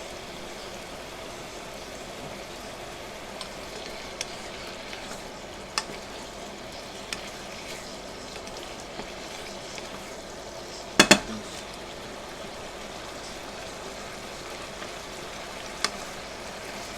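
Chicken, shrimp and tofu sizzling steadily in a hot pan with fish and oyster sauce, stirred now and then, with a few light clicks of a utensil and a loud double clatter of the utensil against the pan about two-thirds of the way through.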